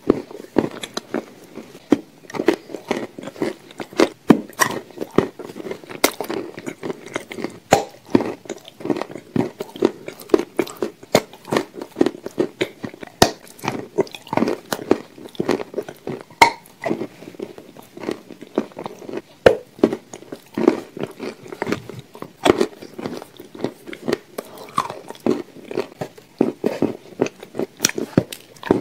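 A person biting and chewing a crumbly, dry slab dipped in thick grey paste: soft crunches and sharp crackling clicks in an irregular run of chews.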